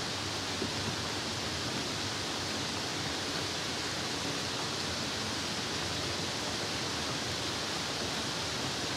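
Steady rain falling: an even hiss with no single drops standing out.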